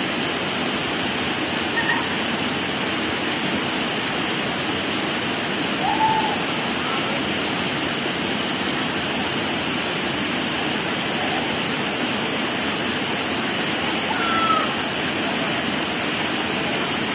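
Waterfall pouring into a rock pool: a steady, unbroken rush of falling water, with a few brief high calls over it.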